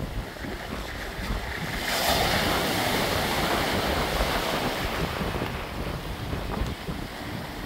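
Sea waves breaking and washing over the rocky shore. A louder surge of surf comes about two seconds in and slowly dies away.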